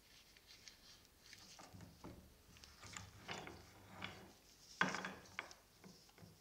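Ratcheting box-end wrench turning a bolt out of a vise-held part: irregular clicks and metal scraping, with one sharper clack a little before the end.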